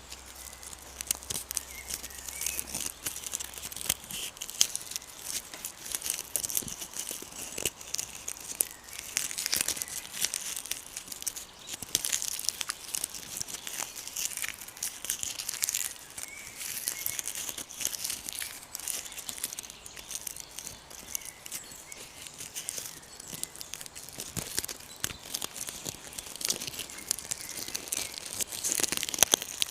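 Close-up crinkling and crackling of dry leaves, a dense, irregular run of small crisp clicks.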